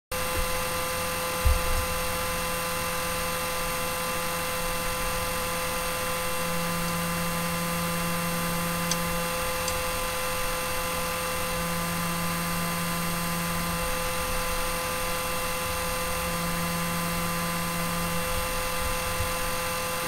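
Cooling fans on a Creality CR-6 3D printer's hotend whirring steadily, with several steady tones over a hiss. A deeper hum comes in three times for a couple of seconds each, the kind of drop in fan tone that marks the nozzle touching the bed. A single low thump about a second and a half in.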